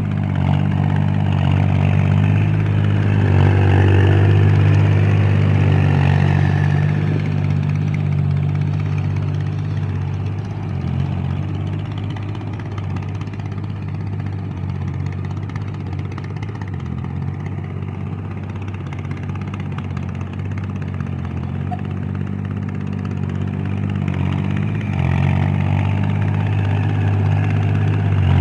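Kubota L4018 tractor's four-cylinder diesel engine running steadily under load, pulling a rotary tiller through wet paddy mud. It is louder in the first few seconds and again near the end, as the tractor comes close, and quieter in between.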